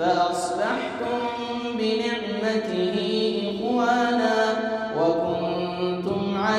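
A man's solo Qur'anic recitation (tajweed) in maqam Hijaz, sung in long, held, slowly ornamented notes; the line drops lower about five seconds in.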